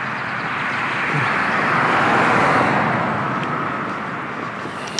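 A car driving past on the road, its tyre and engine noise swelling to a peak a little over two seconds in and then fading away.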